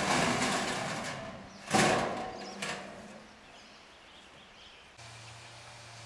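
Curved steel quonset arch panels rattling and clattering as they are handled, with the loudest clang about two seconds in that rings briefly, then a smaller knock.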